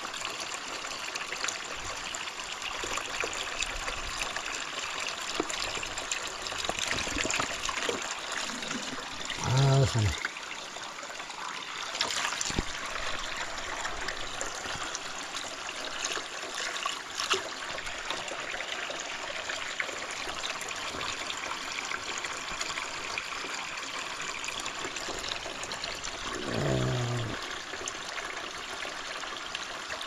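Water running steadily from a pipe spout and splashing into a trough below, as a plastic bottle is held under the stream to fill. A short voice-like sound breaks in about ten seconds in, the loudest moment, and again near the end.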